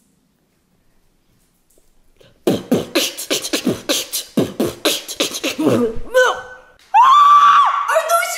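A person beatboxing: a fast run of sharp mouth-made drum hits starting about two and a half seconds in. About a second after the beatboxing stops, a loud, long, high scream breaks in with a short break, continuing to the end.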